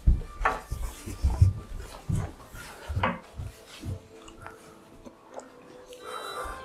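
Bumps and rubbing from a handheld camera being moved about, a run of low knocks that fade after about four seconds. From about five seconds in, a song plays faintly from a television that has switched itself on.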